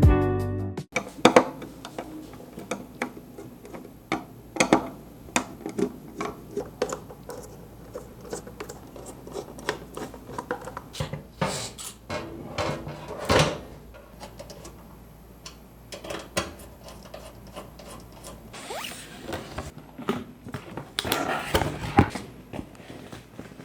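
Computer parts being handled and fitted during a desktop PC build: many small clicks and taps of plastic and metal, a few louder knocks, and two stretches of scraping or rustling near the end.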